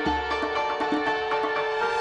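Background music with a steady beat and sustained instrument tones.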